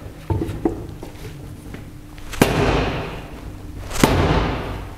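A length of timber striking the jammed screw-on top of a 10-litre pneumatic fluid extractor pump to hammer it loose: a lighter knock at the start, then two hard blows about a second and a half apart, each ringing on briefly.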